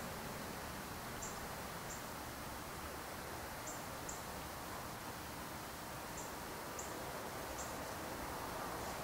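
Outdoor ambience: a steady hiss with faint, short high-pitched chirps every second or two, often in pairs.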